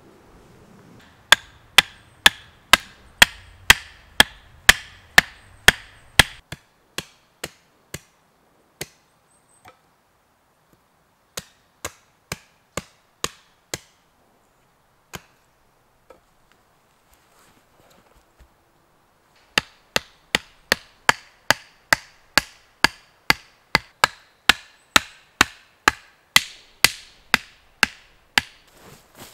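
Hatchet blows on wood in a steady run of sharp, ringing strikes, about two a second. Near the middle the blows turn slower and softer, stop for a few seconds, then resume at the fast pace.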